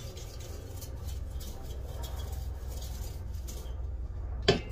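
Faint scratching of a brush scrubbing inside a diesel heater's combustion chamber, with a sharp knock near the end.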